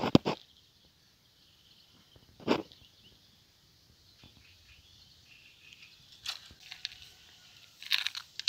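Small clicks and crinkles of plastic fishing tackle being handled: sharp clicks at the start, another single click about two and a half seconds in, then a scatter of faint clicks and rustles toward the end, with quiet between.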